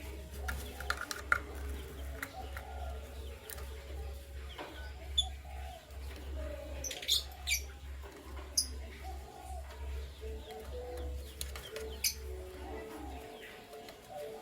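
Canaries chirping: short, sharp high chirps scattered irregularly, rather than a long run of song. A steady low hum underlies them and stops near the end.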